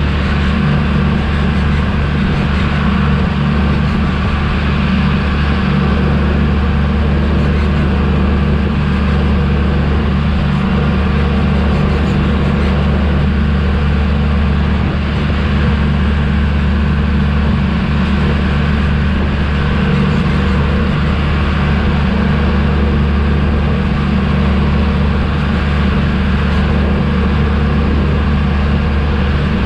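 Mahindra Arjun 555 tractor's diesel engine running steadily under load at full throttle in top gear, heard from the driver's seat as the tractor drives along the road.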